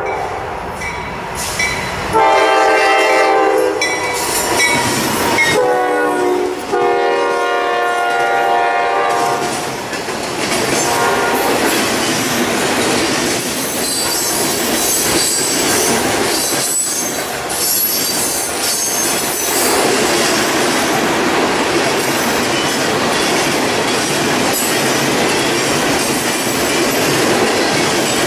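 Norfolk Southern freight train led by a GE D9-40C diesel locomotive sounding its multi-chime air horn in two blasts, the second one longer, as it approaches. It then passes close by with a steady rumble and the clatter of wheels on the rails.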